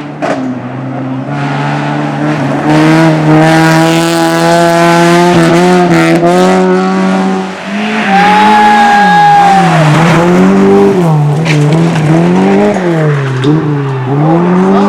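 Hill slalom race car's engine pulling hard and holding high revs, then repeatedly dropping and climbing in pitch about every second and a half as the car brakes and accelerates through the slalom course. A tire squeal comes about eight seconds in.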